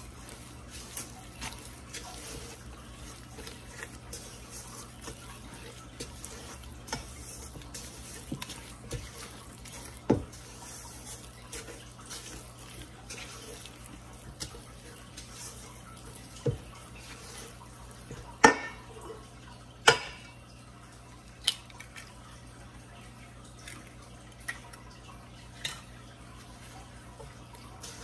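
Silicone spatula stirring thick, wet chocolate crinkle batter in a stainless steel bowl: soft wet squelching, with scattered light scrapes and a few sharper knocks against the bowl, the loudest two close together about two-thirds of the way through.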